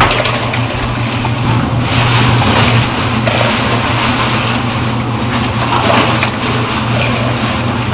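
Hot broth scooped from a steaming cauldron with a plastic dipper and poured into a pot, splashing, over a steady low roar.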